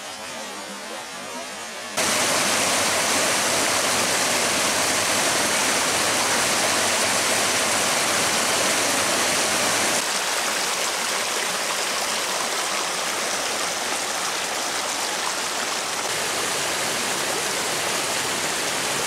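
Small mountain stream rushing over riffles and little cascades, a steady rush of water. It jumps louder about two seconds in and eases slightly about halfway through.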